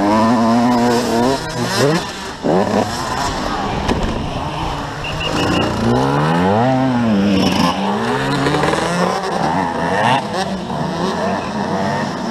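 Motocross bike's engine revving hard, its pitch climbing and dropping again and again as the throttle opens and closes.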